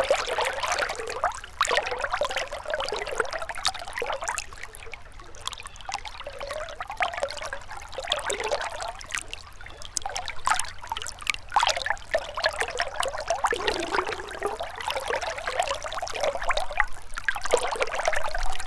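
A small river or stream trickling and burbling over stones, with constant small splashes that swell and ebb unevenly.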